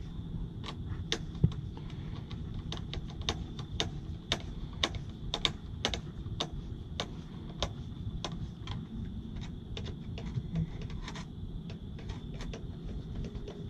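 A run of sharp, irregular clicks, about two or three a second, from hand work on the parts of a weatherproof outdoor GFCI outlet, thinning out after about nine seconds, over a steady low rumble.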